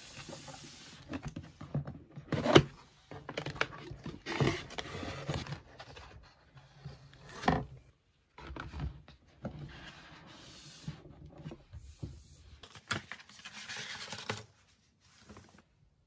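A cardboard cake box being handled and opened: paper and cardboard rustling and scraping against each other, with scattered sharp taps and knocks, the loudest a couple of seconds in.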